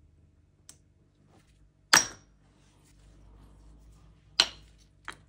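Two sharp metal knocks about two and a half seconds apart, the first ringing briefly, with a few lighter clicks. They come from striking an impact driver's metal front housing, set on a socket over a wooden block, to knock the anvil bushing out.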